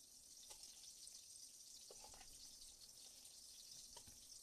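Near silence: a faint steady hiss, with a few soft clicks and squelches from gloved hands handling raw meat in a plastic bowl, about half a second, two seconds and four seconds in.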